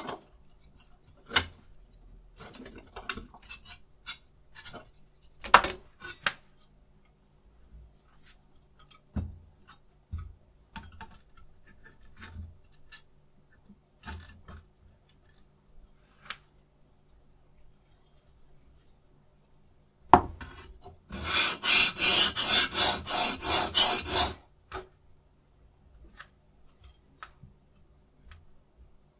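Metal parts of a knife-sharpening jig being handled and adjusted: scattered light clicks and taps. About two-thirds of the way through comes a louder stretch of rapid scraping, about four strokes a second for some three seconds.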